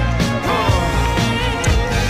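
Background pop music with a steady beat and a strong bass line.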